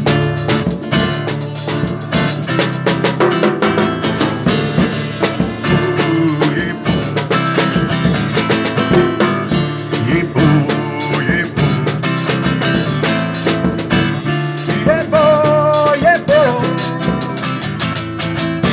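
Acoustic guitar strumming with a drum kit playing an instrumental passage, with a wavering melody line coming in near the end.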